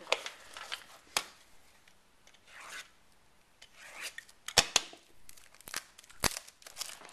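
Hands handling a shrink-wrapped trading-card box and its metal tin: scattered sharp clicks and taps, the loudest a little past the middle, with soft rubbing and scraping of cardboard and plastic wrap in between.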